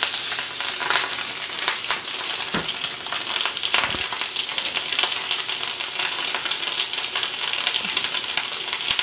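Duck breasts searing skin side down in a smoking-hot, oiled cast iron griddle skillet: a steady frying sizzle dotted with small pops of spitting fat.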